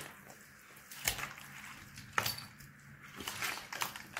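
Hands squishing and pulling sticky slime studded with beads and sprinkles in a foil tray: a few short, soft squelches about a second apart.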